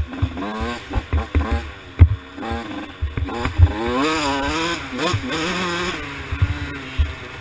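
2012 KTM 85 SX two-stroke dirt bike engine with a big bore kit, revving up and falling back again and again as it is ridden hard over the track. Loud low thumps come every second or so, the loudest at the very start and about two seconds in.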